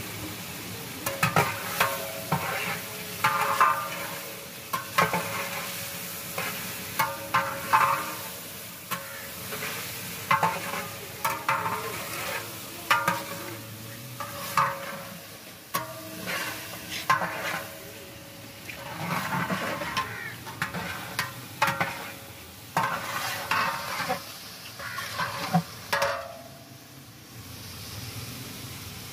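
Long-handled metal ladle scraping and stirring in a large metal deg of chicken korma, with repeated scrapes every second or so, some ringing off the pot, over the sizzle of the hot liquid. The stirring stops about 26 seconds in.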